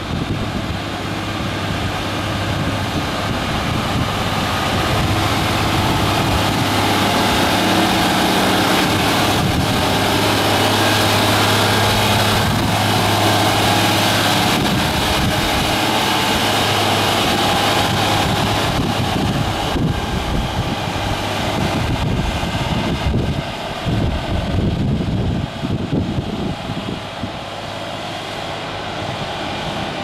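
MAN TGS 32.400 8x4 concrete mixer truck's six-cylinder diesel engine running as the truck drives up, passes close and pulls away; the steady drone is loudest about halfway through, then fades as the truck moves off. Wind buffets the microphone in the second half.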